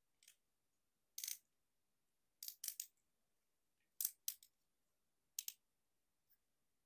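Hard plastic parts and joints of a Transformers Masterpiece Ratchet figure clicking and clacking as its arms and legs are moved into a pose by hand: a string of short, sharp clicks, some in quick pairs and a triplet.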